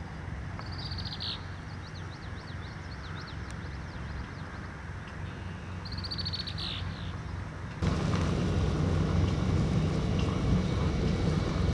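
A small bird chirping twice in short high phrases, with a faint warbling trill between them, over a steady low rumble that suddenly gets louder about eight seconds in.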